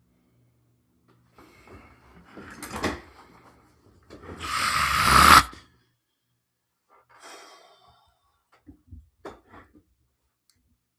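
A man's loud, breathy exhale lasting about a second and a half, with quieter breathing and a few small knocks around it.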